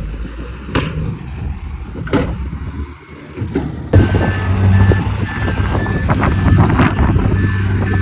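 Heavy diesel construction machinery running, with two sharp knocks in the first half. About halfway through, a steady low engine hum takes over, joined by a reversing alarm beeping over and over.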